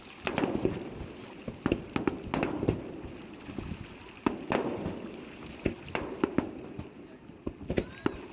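Aerial fireworks bursting: an irregular run of sharp bangs, several in quick succession, each trailing off in echo.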